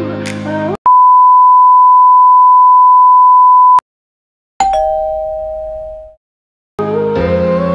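A loud, steady single-pitch electronic beep held for about three seconds, then, after a short gap, a two-note electronic chime like a doorbell that dies away. Background music stops just before the beep and comes back near the end.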